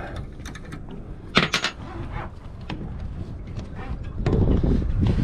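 Sharp metallic clinks as the safety clip is unhooked from the anchor chain at the bow, a cluster of them about a second and a half in. A low rumble runs underneath and grows louder near the end.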